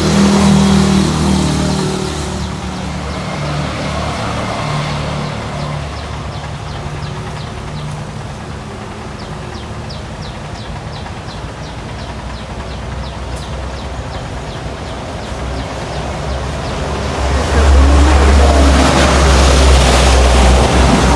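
Road vehicle running, with traffic noise and a steady low rumble. There is a run of light, regular ticks midway through, and the low rumble grows much louder for the last few seconds.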